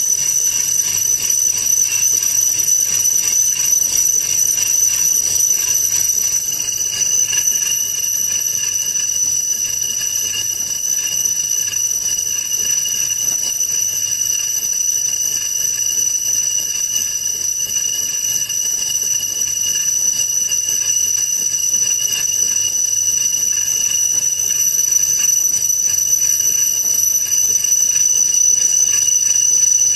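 Metalworking machinery running with a steady, high-pitched metallic whine made of several constant tones, unchanging throughout.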